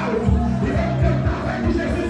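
Worship band music with a steady drum beat under sustained low bass and keyboard notes.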